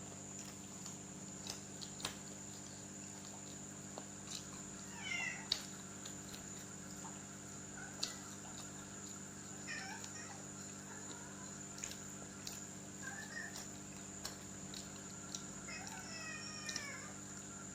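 Domestic cat meowing, three separate meows about five seconds apart, the last a little longer, with scattered small clicks and taps between them.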